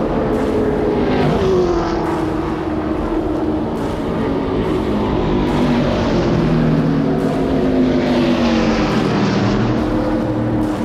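NASCAR-style V8 stock cars running laps on the oval. Their engine note rises as a car comes on and drops as it passes.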